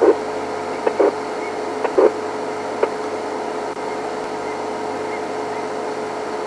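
Steady hum of the game-drive vehicle's engine idling, with a faint constant tone, and a few short soft knocks in the first three seconds.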